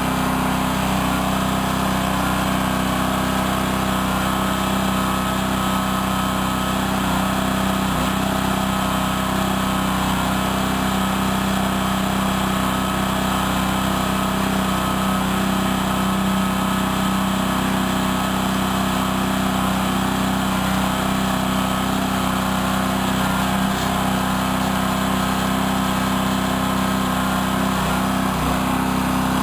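Small engine of a towable backhoe running steadily at a constant speed, the kind of lawn-mower-sized engine that drives the backhoe's hydraulic pump.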